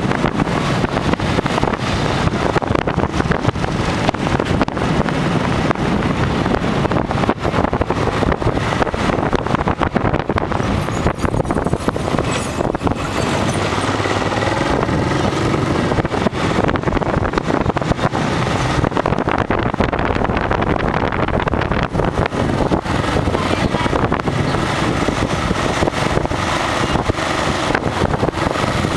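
Motorbike running at road speed, heard from on the bike with wind buffeting the microphone and passing street traffic.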